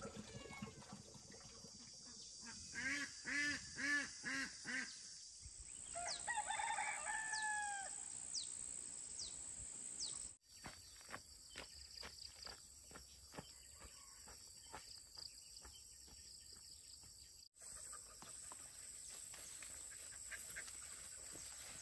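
Faint farmyard chickens: a quick series of about six clucks, then a rooster crowing once, over a steady high hiss of outdoor background. After about ten seconds only soft rustling and light ticks remain.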